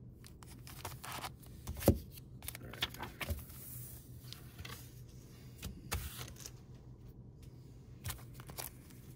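Trading cards in clear plastic sleeves being handled and sorted by hand: scattered soft plastic rustles and light clicks, the sharpest about two seconds in, over a faint low steady hum.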